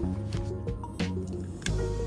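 Background music with a stepping bass line, plucked melody notes and a regular beat.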